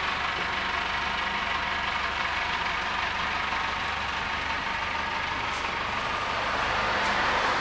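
A steady mechanical drone with a low hum, growing a little louder near the end.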